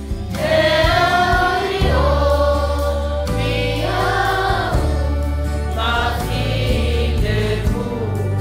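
Mixed choir of children, youth and adults singing a Samoan church hymn in phrases that swell and fall, over sustained low bass notes that change every second or two.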